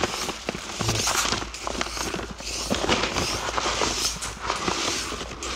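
Granular ammonium nitrate fertilizer pouring from a sack into a plastic spreader hopper: a dense, continuous hissing patter of granules.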